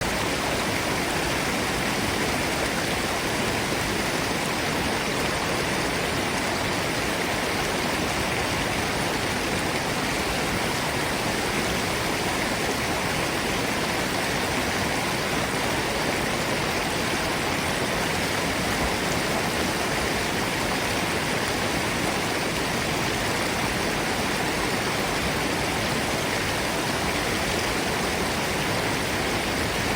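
Forest stream and waterfall: water falling and running in an even, unbroken rush that stays at one level throughout.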